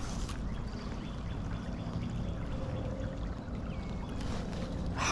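Steady rush of flowing creek water, with a sharp click right at the end.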